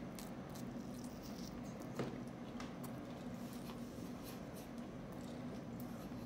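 Close-up chewing and lip-smacking of a mouthful of BLT sandwich: many soft, wet mouth clicks, one sharper about two seconds in, over a steady low hum.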